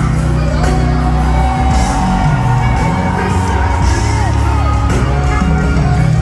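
Live worship band music: a heavy bass-led groove under long held melody notes that slide down at their ends, with singing.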